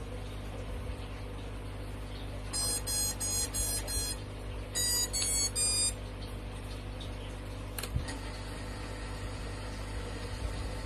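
Bursts of rapid high-pitched electronic beeps from a 5-inch FPV quadcopter as its battery is connected, typical of the ESC startup tones played through the motors: two runs of beeps, from about 2.5 to 4 seconds in and from about 5 to 6 seconds in, then a single click near 8 seconds.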